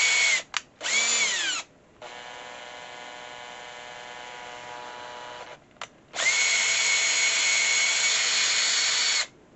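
Cordless drill with an Allen-key shaft in its chuck, whirring in separate trigger runs on a self-tapping threaded insert in a polymer gun stock. There are two short loud bursts in the first second and a half, then a quieter, slower run of about three and a half seconds, then a loud three-second run. Each run's pitch rises as the drill spins up and falls as it stops. The insert has already bottomed out in its hole.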